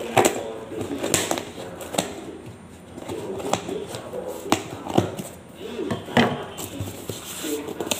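Fingers picking, scratching and tearing at packing tape on a cardboard box, in short irregular scrapes and rips, with the loudest tear about six seconds in as a flap is pulled up.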